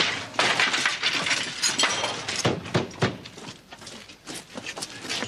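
A pile of household junk clattering and clinking as people shove through it and knock it about. A dense run of scraping and rattling comes first, then several separate sharp knocks around the middle, then quieter clatter.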